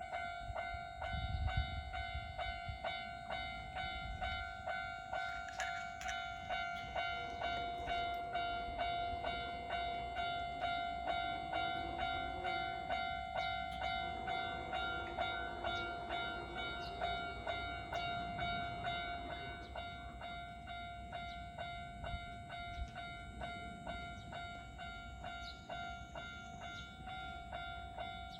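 Japanese railway level-crossing alarm: an electronic warning bell ringing in a steady, evenly repeating rhythm, the signal that a train is approaching and the crossing is closing.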